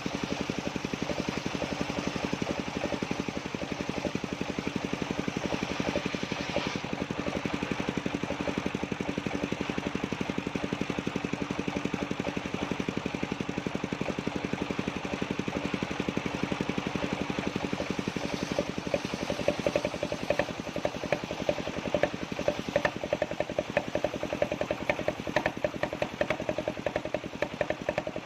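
The engine of a circular-saw sawmill running steadily, with a rapid even pulse and a steady hum. About two-thirds of the way through, a louder, sharper rapid clatter joins in.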